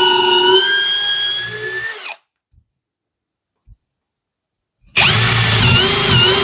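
Parkside Performance PABS 20-Li C2 cordless drill's brushless motor whining while drilling with a 6 mm bit, its pitch dipping and wavering under load. It winds down and stops about two seconds in, then starts up and drills again near the five-second mark.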